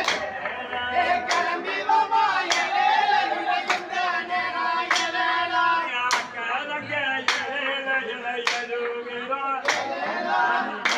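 A kummi folk song sung by men, with the dancers clapping hands together in unison about once every second and a bit, keeping the dance's beat.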